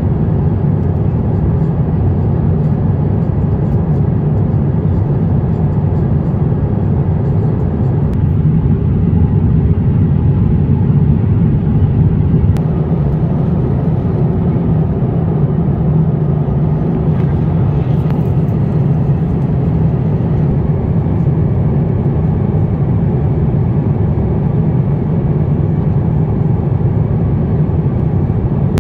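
Airbus A350-900 airliner cabin noise: a steady, low rumble that holds even throughout.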